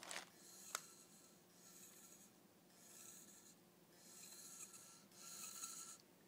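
Hitachi Deskstar 7K250 hard drive struggling to spin up: faint, repeated rasping whirs about a second long each, with short gaps between, growing louder toward the end, and a single sharp click under a second in. The heads are dragging over the platters, typical of a hard drive head crash.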